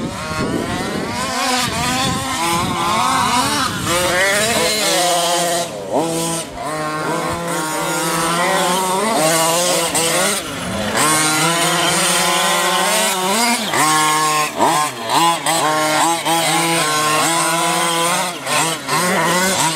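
Small two-stroke engines of several radio-controlled short-course trucks racing together, each revving up and down in quick throttle bursts. The pitches rise and fall and overlap throughout.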